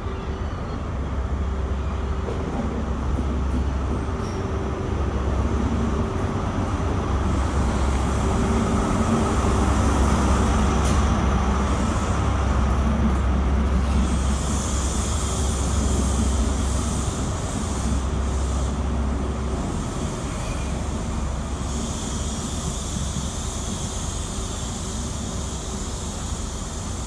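High Speed Train (InterCity 125) rolling slowly into the platform: the Class 43 power car's diesel engine rumbles loudest as it passes, then the Mark 3 coaches roll by on the rails with high-pitched wheel squeal from about halfway through.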